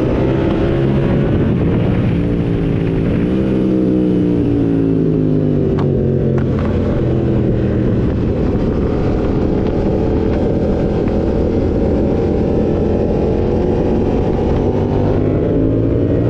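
Motorcycle engine running under way: the pitch climbs briefly, falls away over a few seconds, holds steady, then rises again near the end. Two short clicks about six seconds in.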